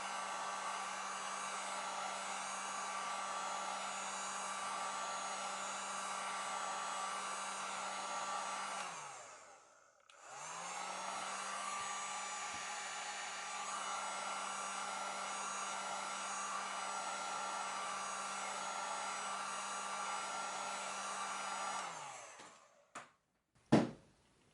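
Electric heat gun blowing steadily with a motor hum. About nine seconds in it is switched off and winds down, then restarts half a second later and runs until it winds down again near the end, followed by a sharp knock.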